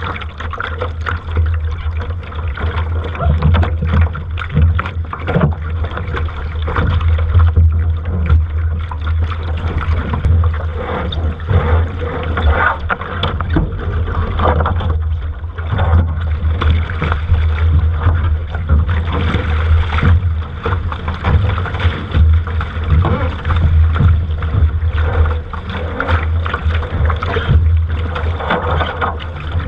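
Strong wind buffeting the microphone in a steady low rumble, over water rushing and splashing irregularly against a sailing boat.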